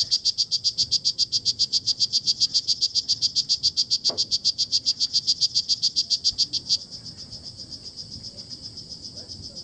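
Strawberry poison dart frog (Bastimentos morph) calling: a loud, high, rapid series of evenly spaced chirps, about ten a second. About seven seconds in the call stops, and a fainter, slightly higher trill carries on.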